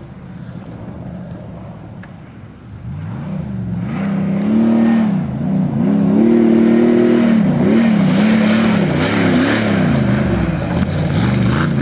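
Engine of a tube-chassis 4x4 off-road race car, faint at first, then revving up and down repeatedly as the car drives across the dirt toward and past, growing loud about three to four seconds in.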